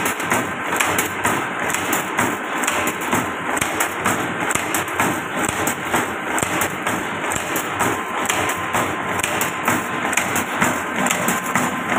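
Wire S-hook making machine running, its cam-driven forming and cutting tooling clattering in a fast, steady rhythm of metal strikes.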